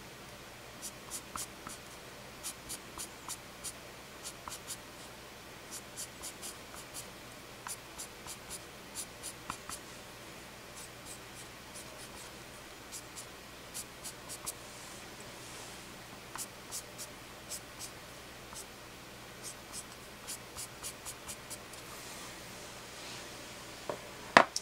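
Eraser pencil scratching on graphite-toned drawing paper in bursts of quick, short strokes with brief pauses, lifting small white clouds out of the graphite. Near the end a single sharp knock.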